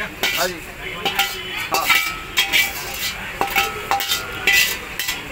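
Metal cooking utensils clinking and clanging at a street-food stall's counter. It is an irregular run of sharp strikes, each ringing briefly.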